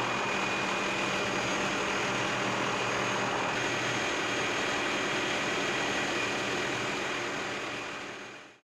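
Helicopter cabin noise heard from inside the cockpit: a steady rushing drone of turbine and rotors with a few held tones, fading out near the end.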